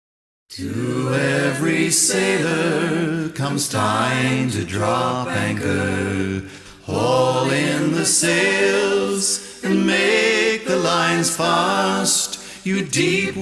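A cappella singing: sung phrases with no instruments, starting about half a second in.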